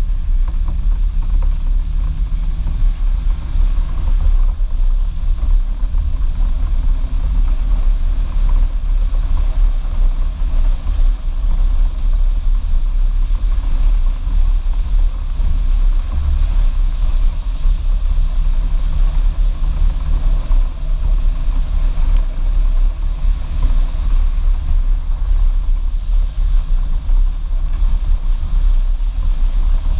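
Off-road vehicle driving slowly along a wet, rocky creek-bed trail: a steady low engine drone under a deep, uneven rumble.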